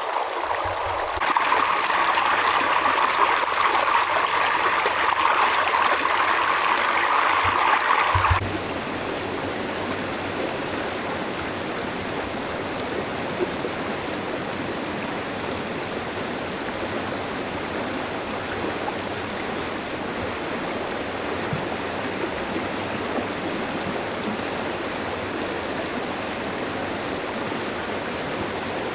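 River water flowing and babbling over rocks. A louder, brighter splashing starts about a second in and cuts off abruptly about eight seconds in, giving way to a quieter, steady rush.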